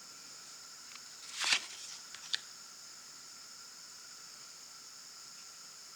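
Plastic-coated (PVC) tarot card being slid off the deck and turned: one short swish about a second and a half in, then a light tap, over a faint steady high whine.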